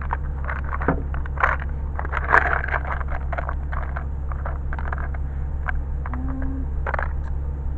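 Small plastic valve fittings clicking and rustling in their packaging as they are sorted through by hand, many short irregular clicks, over a steady low rumble.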